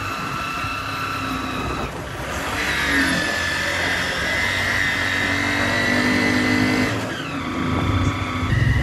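Engine of a moving vehicle under way, a steady whine that shifts in pitch about two seconds in and falls away about seven seconds in as it eases off, followed by a heavy low rumble near the end.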